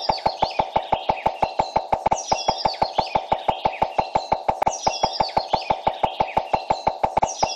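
Background soundtrack of bird chirps recurring every couple of seconds over a fast, even ticking of about five or six ticks a second and a steady mid-pitched tone, repeating like a loop. It cuts off abruptly at the end.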